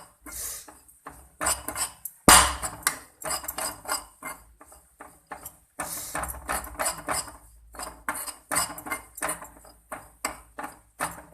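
A spoon scraping and clinking against a pan as gram flour is stirred continuously while it roasts in ghee on a low flame. The sharp strokes come irregularly, a couple or so a second, with one loud clack about two seconds in.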